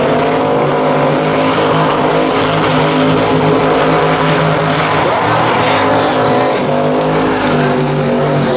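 Pickup truck engines held at high revs during burnouts, the rear tires spinning and smoking. The revs climb in the first second, then hold high with a couple of brief dips.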